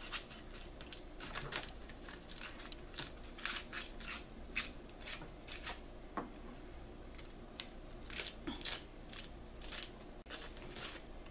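Sandpaper rolled around a screwdriver tip rasping inside a hollow turkey wing bone, in short irregular scraping strokes about one or two a second, as the bone call's airway is sanded clean.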